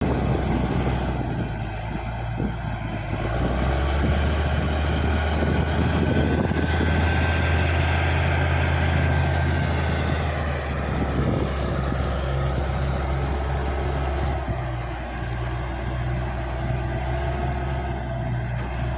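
Caterpillar D6G crawler bulldozer's diesel engine running under load as the dozer works, with a high whine over the engine. The engine loads up and grows louder from a few seconds in, then eases off about three-quarters of the way through.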